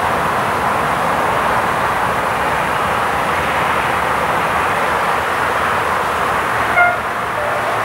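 Steady rolling noise of a train on the line. About seven seconds in there is one brief, high, pitched toot.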